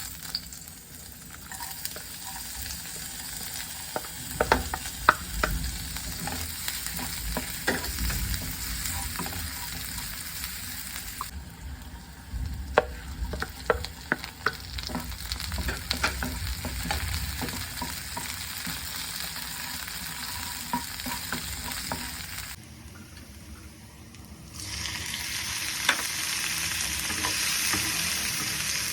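Food sizzling in a frying pan while it is stirred, with a steady hiss and scattered clicks and scrapes of a utensil against the pan. The sizzle drops away briefly about two-thirds of the way through, then returns louder.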